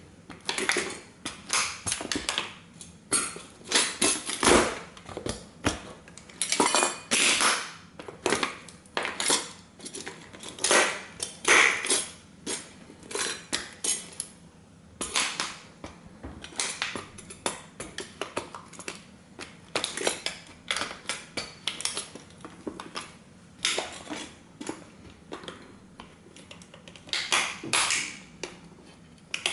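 Thin tin sheet pieces of a flattened vintage toy car crunching, clinking and scraping under the lug soles of heavy combat boots as they step and grind on them. The crunching is dense at first, thins out about halfway through, and picks up again near the end.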